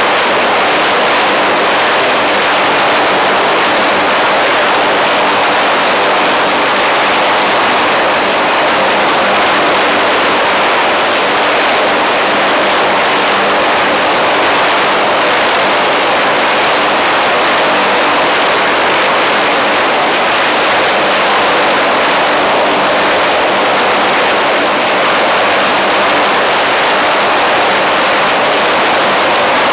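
UH-1Y Venom helicopter running on the ground with its rotor turning: a loud, steady rush of its twin T700 turboshaft engines and rotor, with a faint low hum underneath.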